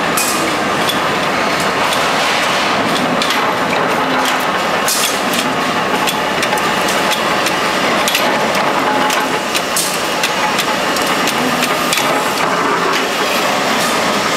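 Mechanical flywheel punch presses running: a steady, loud machine noise with a few sharp metal stamping strikes.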